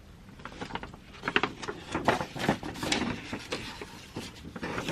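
A K-pop album's card and paper packaging handled by hand: a quick run of small clicks, taps and rustles.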